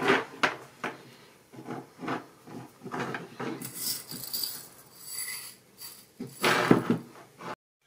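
Small seed beads rattling and rustling in a small bowl as fingers rummage through them, then a louder rush as beads are tipped from the bowl into a palm, after a few light clicks of handling on the table.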